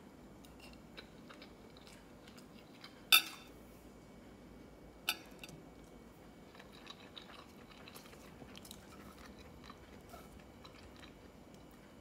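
A metal spoon clinking and scraping against a plate while fried rice is scooped, with small scattered clicks throughout and two sharp clinks about 3 and 5 seconds in, the first ringing briefly.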